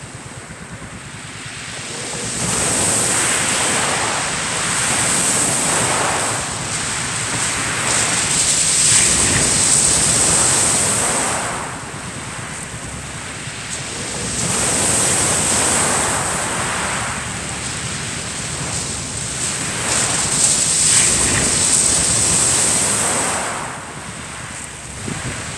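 Small waves breaking and washing over a shingle beach, the surf noise swelling and fading in long surges every few seconds, with wind buffeting the microphone.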